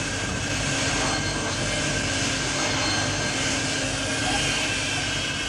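Cartoon sound effect of a jet fighter's engine: a steady rushing roar with a few held tones running through it.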